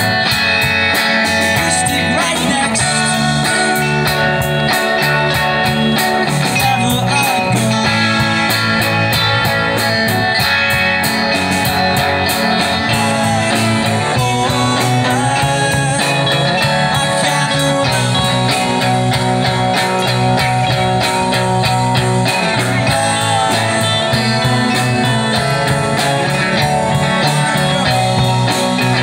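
Live rock band playing: electric guitars through small amplifiers over a drum kit, in a steady beat.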